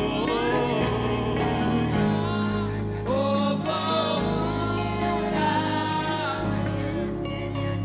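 Gospel worship song: singing in long, gliding phrases over instrumental accompaniment with a sustained bass.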